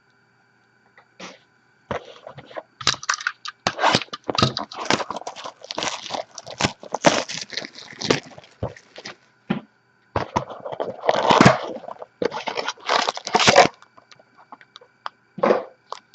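A sealed trading-card hobby box is unwrapped and opened, its packaging crinkling, crackling and tearing in quick irregular bursts. The sound stops briefly near the end, then one more crinkle follows.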